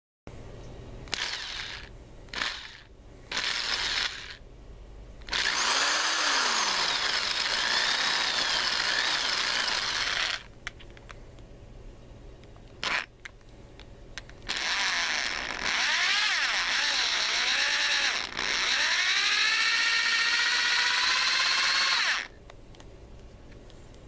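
Power drill running in bursts: a few short trigger pulls, then two longer runs of about five and eight seconds. Its motor whine slides down and back up in pitch as the speed changes.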